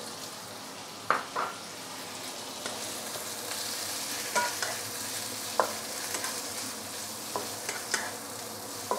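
Chunks of roast pork and minced garlic frying in oil in a wok, a steady sizzle that grows a little louder after a few seconds. A wooden spatula knocks and scrapes against the pan a handful of times as it stirs.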